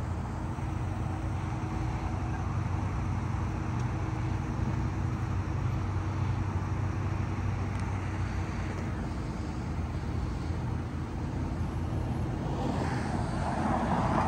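Steady road traffic and engine noise with a continuous low hum, swelling louder near the end.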